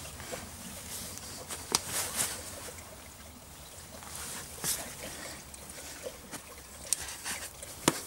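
Hands working a rubber bicycle tyre bead onto the rim of an e-bike rear wheel: soft rubbing and handling noise with a few scattered sharp clicks.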